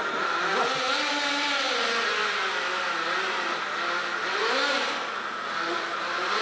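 Nitro-engined RC drift car's small glow engine running at high revs, its pitch swelling up and down several times as the throttle is worked through the drift. It is fitted with a MAD ISAKA exhaust muffler that keeps it fairly quiet.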